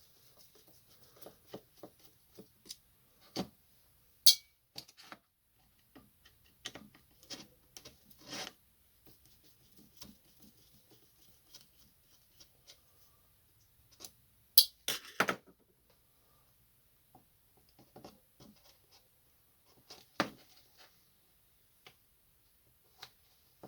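Scattered plastic clicks, knocks and short scraping rubs as a laser printer toner cartridge is taken apart by hand to get at its blade, with a few sharper snaps about four seconds in, around fourteen to fifteen seconds in and about twenty seconds in.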